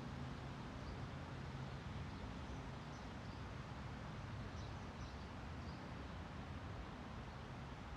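Distant city traffic as a steady low rumble, with wind rustling tree leaves and faint bird chirps now and then.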